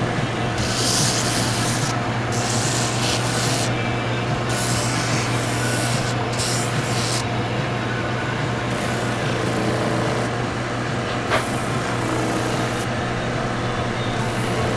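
Cobbler's shoe finishing machine running with a steady motor hum, its spinning sanding drum scraping against a leather cowboy boot pressed to it in a series of short passes, each a second or two long.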